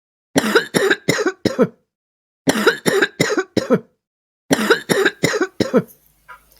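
A person coughing: three fits of four sharp coughs each, with short pauses between the fits.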